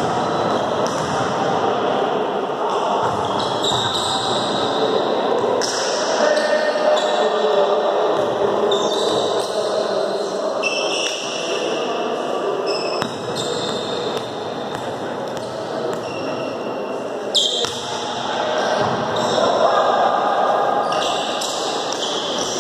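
Volleyball rally in a large gym: the ball struck with sharp slaps, clearest about six seconds in and again near the middle, amid many high-pitched squeaks of shoes on the court and players' voices, all echoing in the hall.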